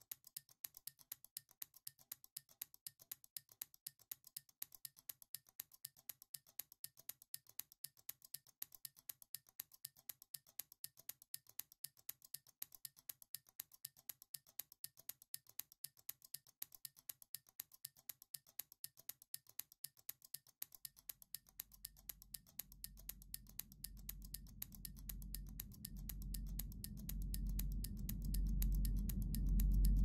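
Time-bomb clock mechanism ticking evenly, roughly two and a half ticks a second. About two-thirds of the way through, a low rumble comes in under the ticking and swells steadily louder toward the end.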